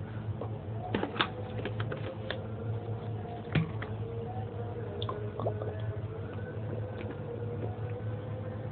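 A distant call to prayer (azan): a faint chanted voice holding long notes and shifting between them, over a steady electrical hum, with scattered sharp clicks.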